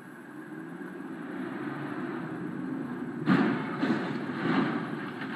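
Steady road and engine noise heard from inside a moving car. About three seconds in, a loud vehicle crash: a heavy impact followed by several more thumps and scraping as a vehicle ahead rolls over onto its side.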